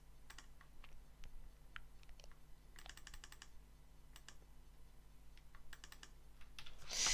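Scattered, irregular clicks from a computer keyboard and mouse, with a quick run of clicks about three seconds in. A loud breath out comes at the very end.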